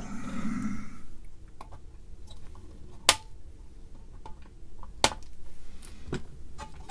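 A few sharp clicks and taps of small hand tools and parts being handled on a workbench, the loudest about three seconds in, with two more near the end.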